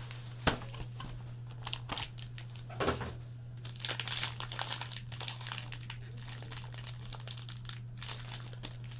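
Plastic wrapping crinkling and tearing as a trading card box is unwrapped and opened, densest about four to five seconds in. There are a couple of soft knocks of the box being handled before it, over a steady low electrical hum.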